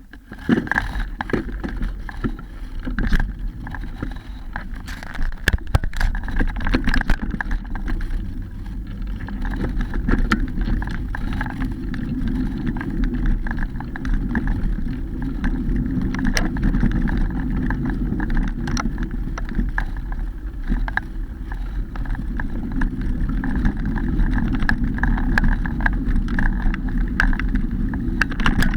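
Mountain bike ridden along a forest trail: a steady low rumble of wind and tyres, with frequent sharp knocks and rattles as the bike goes over bumps.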